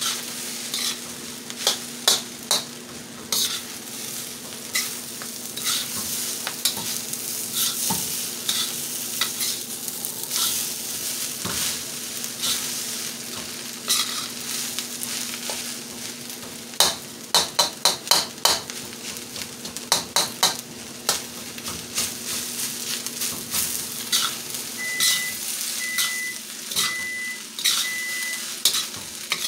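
Fried rice and vegetables sizzling in a steel wok while a spatula stirs and scrapes the pan, with frequent sharp clicks and scrapes of spatula on metal. Near the end, four short electronic beeps come about a second apart.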